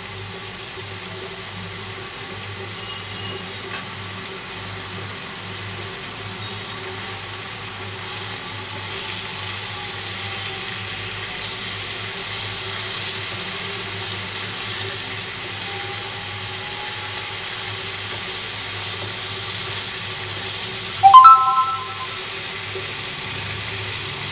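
Chicken pieces frying in oil in a non-stick pan on high flame, a steady sizzle over a low hum. About 21 seconds in comes one brief, loud, ringing clank.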